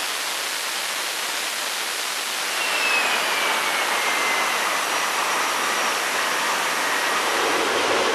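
Pratt & Whitney F119-PW-100 turbofan running with its afterburner lit on a test stand: a steady, even jet noise that grows a little louder about two and a half seconds in, with a faint whine gliding slowly down in pitch.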